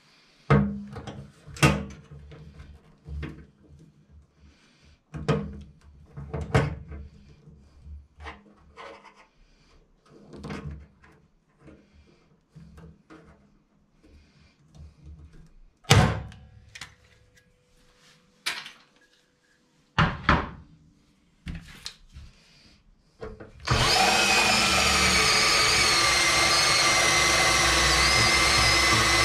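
Sharp knocks and clicks of tools and metal being handled and clamped, then a DeWalt cordless drill runs steadily near the end, boring a hole through a thin flat metal bracket, its whine wavering slightly in pitch.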